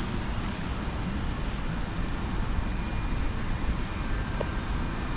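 Steady street traffic noise: a low rumble with hiss above it and no distinct events standing out.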